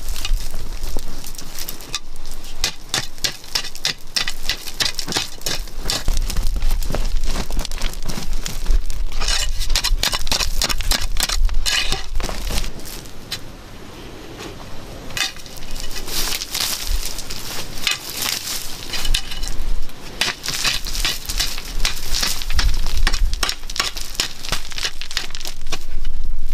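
Hand digging in gravelly red earth: a tool scraping and striking into soil and loose stones, giving runs of quick crackling hits and trickling gravel, with a brief lull around the middle.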